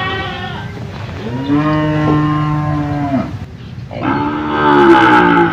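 Cattle mooing in a pen: one long, even moo about a second and a half in, then a second, louder moo near the end.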